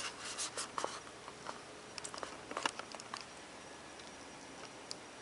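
A white paperboard phone box and its lid being handled: scattered light clicks, taps and rustles through the first three seconds or so.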